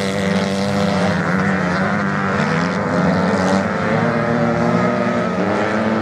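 Engines of several off-road motorcycles running hard as they race, their notes rising and falling as riders change speed.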